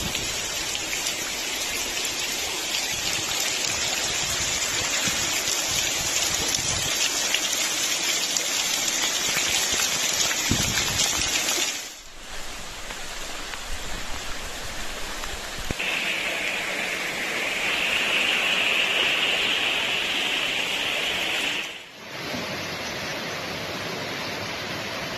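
Heavy rain pouring down with running floodwater, a steady wash of water noise in three stretches with abrupt breaks between them. The middle stretch grows a stronger, higher hiss of rushing water partway through.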